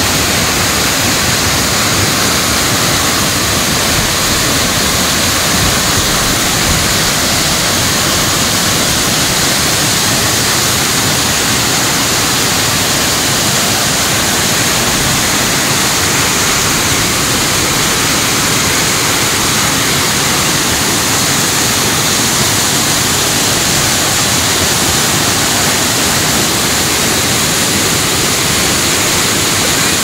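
Waterfall running: a loud, steady rush of falling water.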